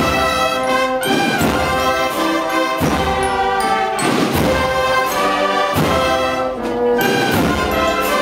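Brass band playing a slow Holy Week processional march, held brass chords over a heavy beat about every second and a half.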